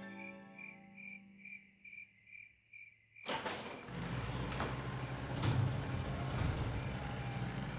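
Night-time cricket chirping, an even pulse of about two chirps a second. About three seconds in it gives way to a louder rumbling noise with a low hum and a few clunks as a small cartoon construction vehicle rolls out of its garage.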